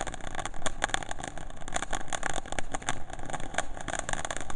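Small ground firework burning, a steady dense fizzing and crackling.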